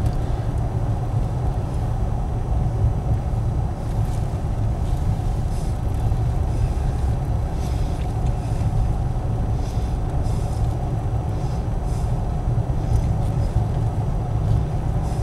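Steady engine and road rumble of a vehicle being driven, heard from inside the cabin.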